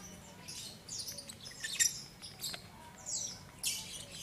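Lovebirds chirping: a string of short, high-pitched chirps.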